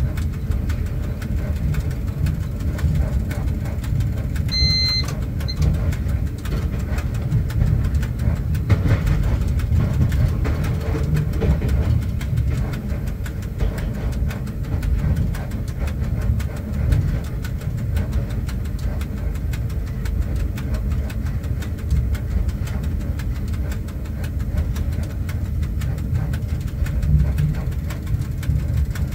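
Steady low rumble inside the cab of a ChS4 AC electric locomotive. A short high electronic beep sounds once, about five seconds in.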